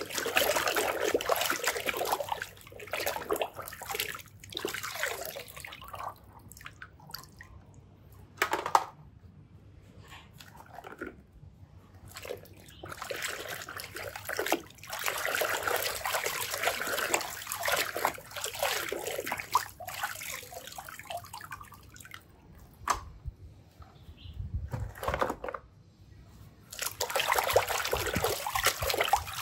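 Hands sloshing and swishing through thick muddy water in a plastic basin, in stretches of splashing with short pauses between.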